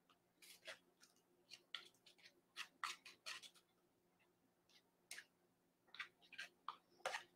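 Near silence, with about a dozen faint, short clicks and taps scattered unevenly through it.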